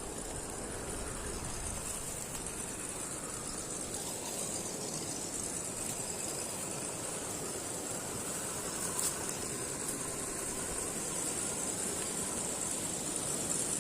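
An RGT EX86010-CJ 1:10 RC crawler's electric motor and drivetrain running steadily as it drives, a continuous whir with rattle and a high-pitched hiss, and a single click about nine seconds in.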